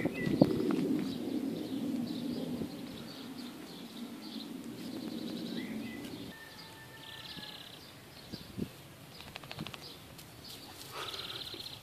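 Small birds chirping and trilling in the background over a low steady rumble that stops about six seconds in, with a few soft scuffs or taps later on.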